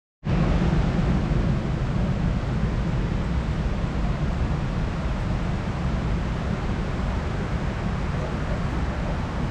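Steady rushing noise of water falling into the National September 11 Memorial's reflecting pools, heavy in the low end. It starts suddenly just after the beginning.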